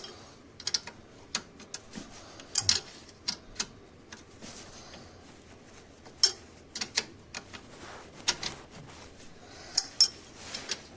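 Irregular metallic clicks and clinks of hand tools working on metal fasteners under a car, a few sharper knocks among them.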